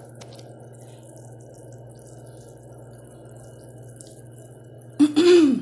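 Steady low kitchen background hum and hiss for about five seconds, then a brief loud voiced sound with a rising-then-falling pitch near the end.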